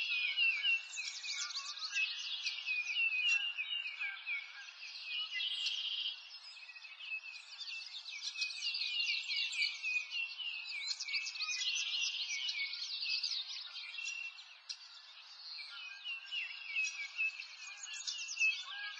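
Many small birds chirping and twittering at once: a dense, continuous run of quick high chirps.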